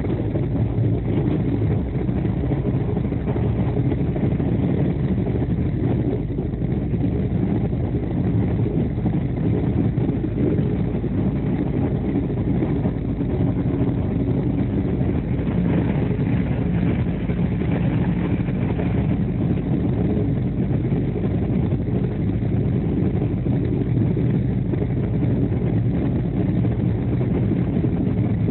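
Steady low rumble of an express train running at speed, heard from inside the coach through the window glass.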